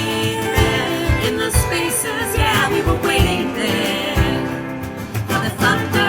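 Live band playing the closing bars of a song: guitar over a steady low beat, with voices singing wordless harmony.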